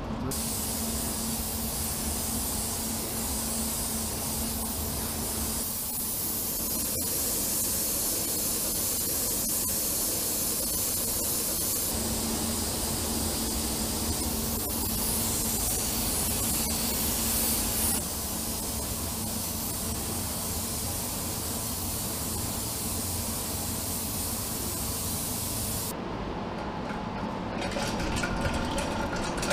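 Gravity-feed compressed-air spray gun hissing steadily as it sprays paint onto a car wheel rim, the hiss changing in strength every few seconds. Near the end the hiss stops, leaving a lower steady hum.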